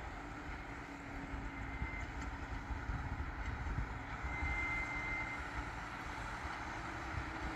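Distant Case IH Quadtrac 540 tracked tractor engine running with a steady drone over a low rumble. A short high whine comes in about halfway through.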